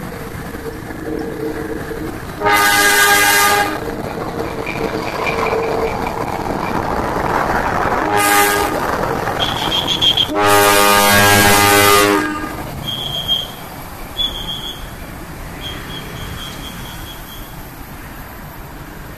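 Diesel-hydraulic BB304 locomotive sounding its horn three times: about a second long, then a short toot, then a longer blast of nearly two seconds. Its engine noise swells as it passes close by and then fades as it moves away.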